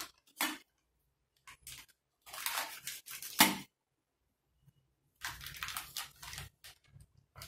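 Plastic detergent pouch crinkling in short bursts as it is handled and cut open, with one sharp snip or click about halfway through.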